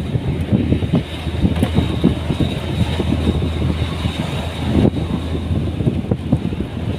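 A vehicle running steadily with a low hum, under constant irregular rattling and knocking.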